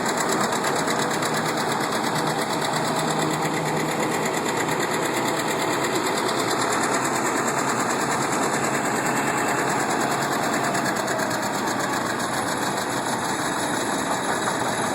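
Old farm machinery running steadily, a tractor engine and its driven equipment making a fast, even rattle.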